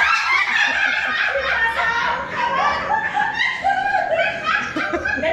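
A group of women laughing hard in quick, repeated high-pitched bursts.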